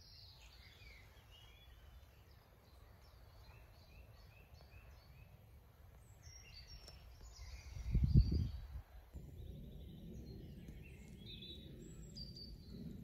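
Faint songbirds chirping and trilling in the woodland, many short calls overlapping. About eight seconds in there is one brief low rumble, the loudest sound here.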